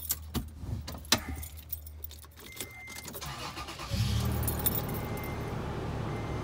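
Keys jangling and clicking at the ignition. About four seconds in, the Toyota FJ Cruiser's 4.0-litre V6 starts and settles into a steady idle, with a short electronic beep repeating over it.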